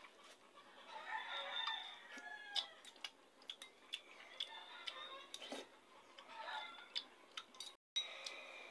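Chickens clucking and a rooster crowing, in several wavering calls, over close-up eating sounds: chewing noodles and sharp clicks of a spoon against a bowl.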